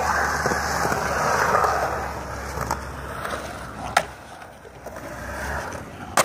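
Skateboard wheels rolling on the concrete of a skatepark bowl, a rushing roar that swells and fades as the rider carves the walls. Sharp clacks of the board about four seconds in and again near the end.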